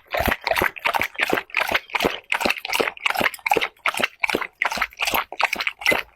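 A dog eating, with a steady run of smacking, lapping mouth sounds at about three to four a second.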